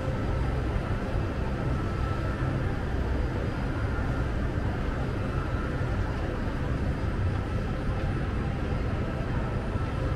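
Steady low rumble with a light hiss over it: outdoor urban ambience, even throughout with no distinct events.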